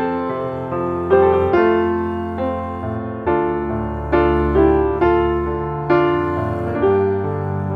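Background piano music: notes and chords struck every second or so, each fading before the next.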